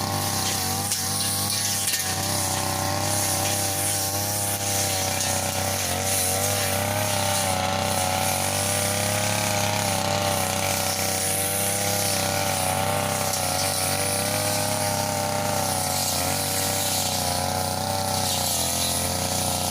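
Two-stroke brush cutter engine running steadily at high speed while cutting grass, its pitch wavering slightly as the load changes.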